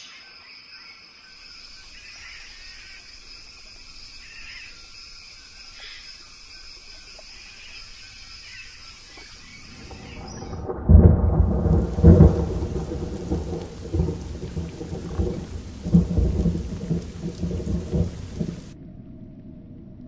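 Thunderstorm: after a faint, steady high-pitched drone and hiss, loud thunder rumbles and cracks come in about halfway through over a hiss of rain. The heaviest claps are around the middle, and the rain hiss cuts off abruptly near the end.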